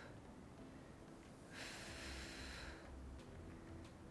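A woman's breath close to the microphone, one breathy hiss lasting about a second, from about a second and a half in. It is paced breathing in time with a slow, controlled dumbbell exercise.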